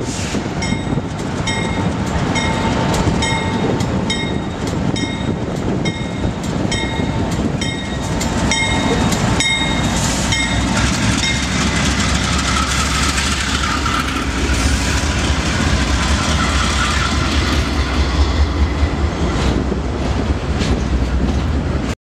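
Norfolk Southern diesel freight train passing directly below. For the first ten seconds a bright, regular ringing clang sounds about twice a second as the locomotives approach. From about eleven seconds the locomotives' heavy low rumble and a steady whine take over as they pass underneath, and then the intermodal cars rumble by.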